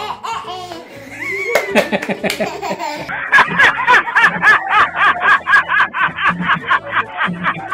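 A child laughing hard in a quick, repeated run of ha-ha pulses starting about three seconds in, over steady background music.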